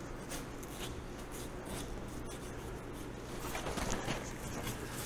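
A 6-inch curved butcher knife slicing bison hide away from the carcass: a run of short, faint scratchy cutting strokes, a little louder a few seconds in, over a steady low hum.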